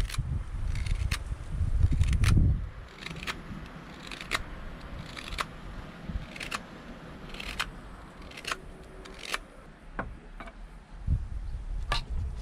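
Hook knife cutting out the bowl of a birch wooden spoon: short, crisp scraping cuts about once a second. A low rumble sits under the first two seconds or so.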